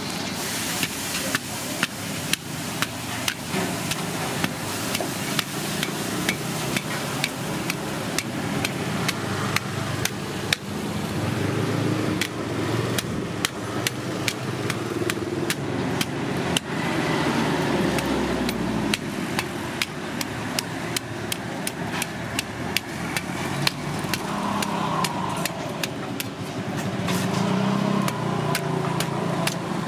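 A large knife scraping the scales off a giant grouper, each stroke snapping hard scales loose as a sharp click, a few clicks a second, over a steady low background hum.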